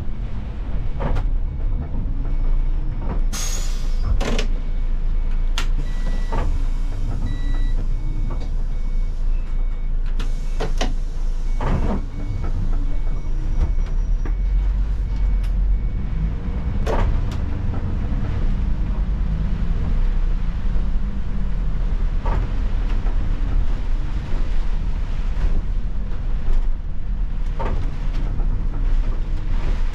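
Cabin of an Iveco Crossway city bus on the move: a steady low engine and road rumble, with scattered sharp knocks and rattles from the bus body. A faint repeating electronic pip runs through the first half.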